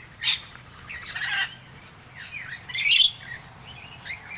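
Feeding flock of rainbow lorikeets and noisy miners calling: short harsh squawks with smaller chirps between, the loudest squawk about three seconds in.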